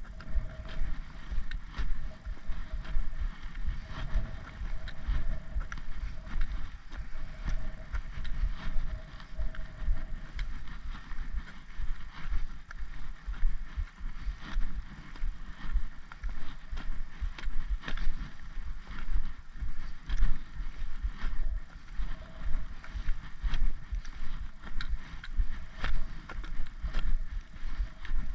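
Wind buffeting the microphone of a handheld camera in a gusting low rumble, with short clicks and knocks from walking and handling.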